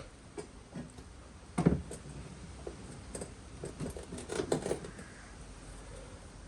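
Scattered light knocks, taps and rubbing of parts being handled, with a sharper clunk about a second and a half in and a quick run of knocks around four and a half seconds.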